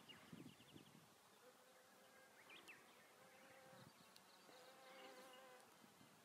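Faint buzzing of a flying insect's wings, a steady hum that comes and goes twice as it passes near the blooming flowers.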